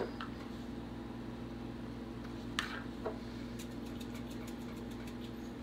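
Steady low electrical hum from a running kitchen appliance or fan, with a few light clicks and taps of handling.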